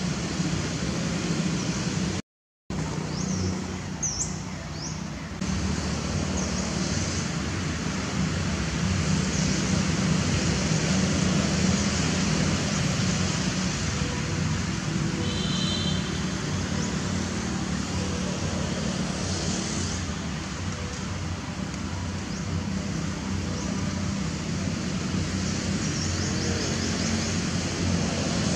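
Steady outdoor background noise, a rumble and hiss with a low hum, like distant road traffic. It drops out briefly about two seconds in, and a short high chirp comes past the middle.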